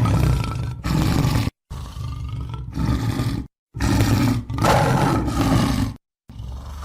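Tiger roaring, several roars in a row, broken by three short gaps of dead silence where separate takes are spliced together.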